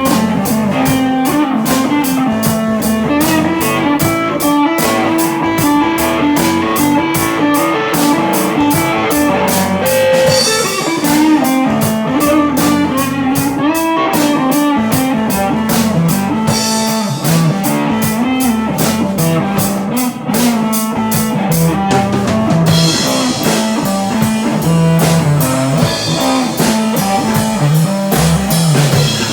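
Rock music: guitars over a drum kit keeping a steady beat of about four strikes a second.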